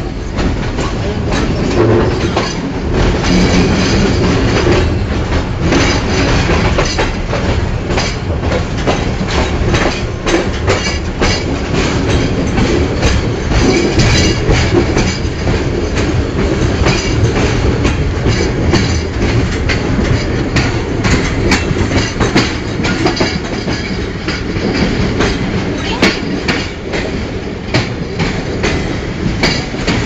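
Tezrao Express passenger train running steadily along the track, heard from an open coach doorway: a constant rumble and wind noise with a fast, irregular clatter of wheels over rail joints.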